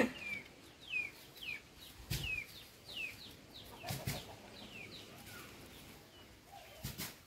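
A bird calling with a string of short chirps, each falling in pitch, about two or three a second, which stop about two-thirds of the way through. A few sharp clicks, the loudest at the very start, come in among them.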